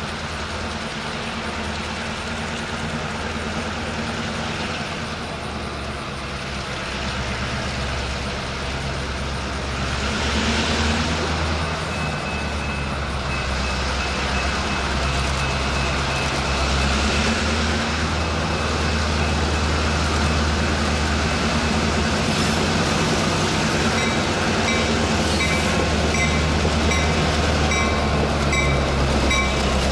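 Two EMD GP38-2 diesel locomotives approaching, their 16-cylinder two-stroke engines rumbling low and growing louder as they draw near. Over the last several seconds a bell rings in steady, evenly spaced strikes.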